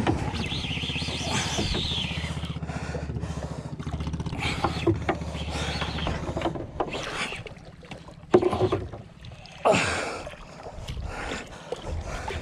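Small boat's engine running with a steady low pulsing rumble that drops away about two-thirds of the way through. Two sharp knocks come near the end, about a second and a half apart.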